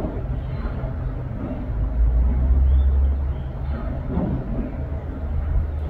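A low rumble that swells for about a second and a half near the middle, then settles back.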